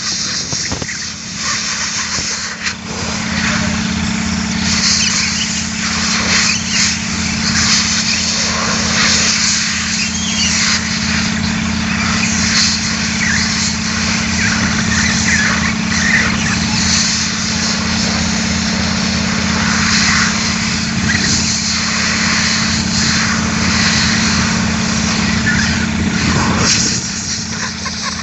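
Compressed air hissing as it is blown through a large pleated engine air filter element from the inside to clean out the dust, the rush swelling and easing as the nozzle moves. Beneath it a heavy machine's engine runs with a steady hum.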